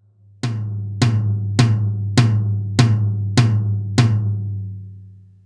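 Roland TD-12 electronic drum kit playing a low tom sound from its module, struck seven times at an even pace about 0.6 s apart, then ringing out after the last hit. The hits are a test of a repaired V-Drums mesh tom pad.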